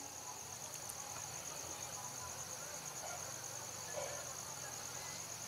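A cricket chirring in a steady, rapidly pulsing high trill, over a faint low hum. There is a faint click about four seconds in.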